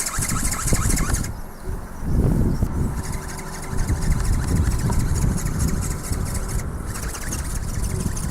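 Strong wind buffeting the microphone, with the high, rapidly pulsing buzz of a small geared electric-motor ornithopter flapping its wings; the buzz drops out about a second in and comes back near the end.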